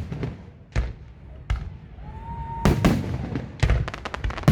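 Fireworks shells bursting overhead, four booms in quick succession, followed by a run of rapid crackling near the end.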